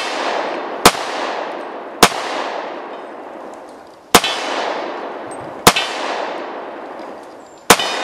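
Semi-automatic pistol fired five times at an uneven pace, one to two seconds apart, each shot followed by a long echo that dies away.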